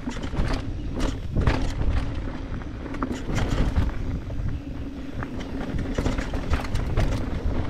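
Mountain bike rolling fast down a dry dirt trail: tyres over dirt and dead leaves, with frequent rattles and knocks from the bike over the rough ground.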